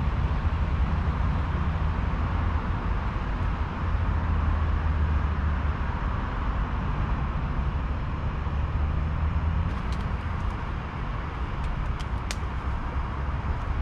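Steady road traffic circulating the roundabout, a constant low rumble of passing cars. A few light clicks near the end.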